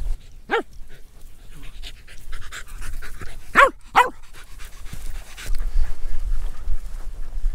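A dog panting as it trots along a grassy track, with three short pitched calls: one near the start and two close together about halfway through. A low rumble comes in near the end.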